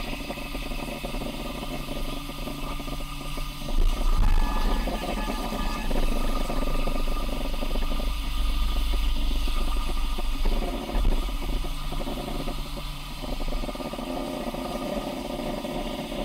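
CNC plasma torch cutting 1 mm sheet metal at 17 amps: the arc's loud, steady hiss and roar over a low hum, swelling louder for a moment about four seconds in.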